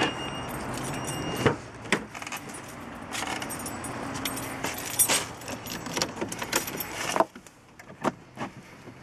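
Car keys jangling, with clicks and knocks as the car door is opened and someone climbs into the driver's seat. A steady rustle of handling runs underneath, and a louder knock about seven seconds in is followed by a quieter stretch with a few small clicks.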